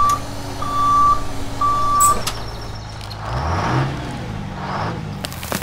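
Truck reversing beeper sounding three times, about once a second, over a steady engine rumble. A little after the beeps stop, the engine pitch rises and falls, with bursts of hiss.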